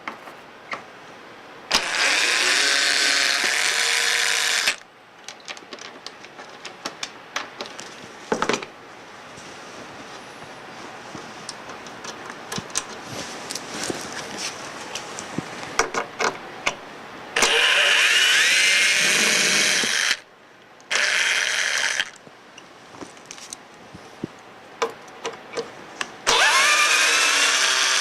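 Cordless drill-driver running in four bursts of a few seconds each, its motor pitch gliding, backing out the screws that hold the control panel; small clicks and rattles of screws and washers between the bursts.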